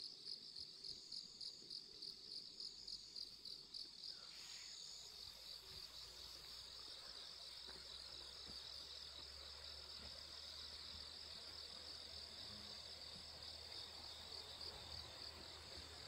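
Faint chorus of grass insects chirping in a steady, high-pitched pulsing trill. A low rumble joins from about four seconds in.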